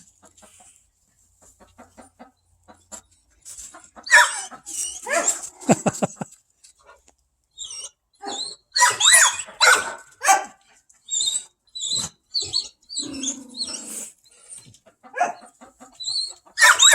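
A dog whining and giving short barks in irregular bursts, starting about four seconds in.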